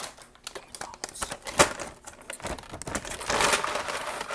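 Brown paper McDonald's takeout bag crinkling and rustling as it is handled right at the microphone, with a sharp crackle about one and a half seconds in and denser rustling near the end.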